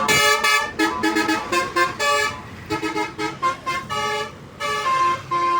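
Tour bus's multi-tone 'telolet' musical horn, Basuri type, honking a quick tune of short notes in changing pitches, ending on a couple of longer held notes.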